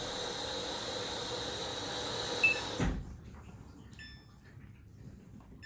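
Samsung washing machine running its rinse cycle with a steady hiss of water. A short control-panel beep comes about two and a half seconds in, then a brief thump, and the running sound cuts off as the cycle is stopped to switch to spin.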